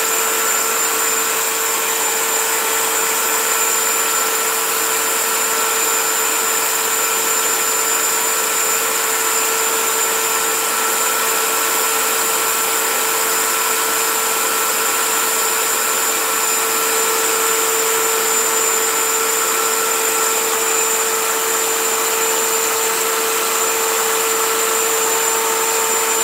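Cuisinart electric hand mixer running steadily, its beaters whipping egg yolks and sugar in a glass bowl: a constant motor whine with a whirring hiss.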